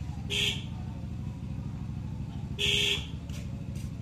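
Two short vehicle horn toots, a brief one about half a second in and a longer one near the three-second mark, over a steady low engine rumble.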